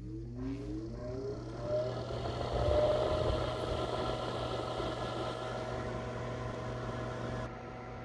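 Inline duct blower motor, 120-volt, switched on: its whine rises in pitch as the fan spins up over the first few seconds, then it runs steadily with an even rush of air. A pretty quiet motor.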